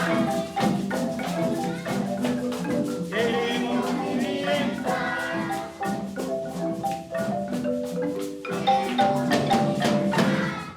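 Traditional Pacific Colombian marimba ensemble playing: wooden marimba notes over steady drum hits and shaker rhythm, with voices singing along part of the way. The music cuts off abruptly at the end.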